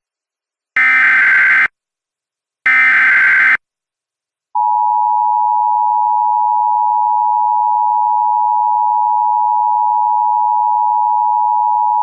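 Two short bursts of Emergency Alert System SAME header data, a harsh digital screech about a second each, encoding a tornado warning alert. About a second after the second burst, the EAS two-tone attention signal starts: a steady, loud pair of tones just under 1 kHz.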